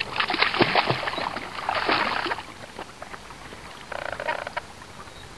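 Black retriever wading in shallow lake water, a run of sloshing splashes for the first couple of seconds. Then quieter lapping, with one short splash about four seconds in.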